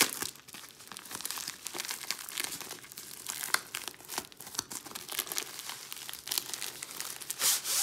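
White padded bubble mailer crinkling and rustling as it is opened and its paper-wrapped contents are slid out, a steady run of small crackles with a louder rustle near the end.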